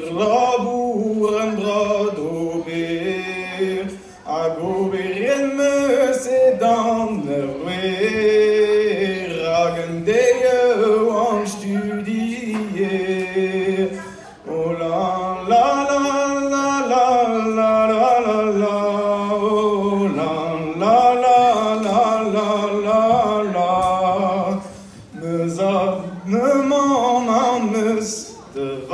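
A man singing solo and unaccompanied (a cappella) into a microphone: a Breton gwerz, a sung ballad in the Breton language. A single voice carries long melodic phrases and breaks off briefly between them several times.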